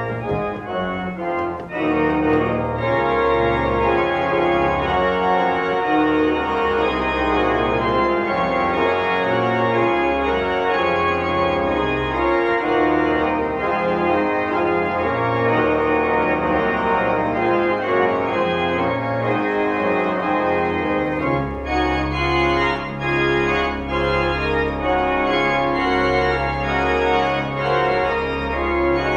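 Organ playing slow, sustained chords, with the low bass notes growing stronger about three-quarters of the way through.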